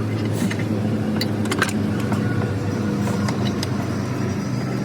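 A vehicle engine running steadily at idle, a low even hum, with a few light clicks and knocks over it.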